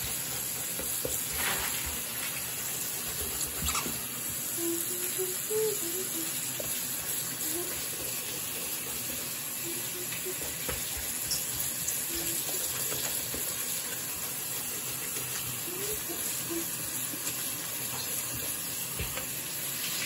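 Tap water running steadily into a bathroom sink and splashing over a wet Vessi mesh sneaker, with a soft-bristle brush scrubbing the soapy fabric.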